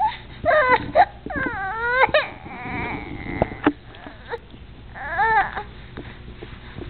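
Baby crying: a run of short wails that rise and fall over the first three seconds, then one more wail about five seconds in.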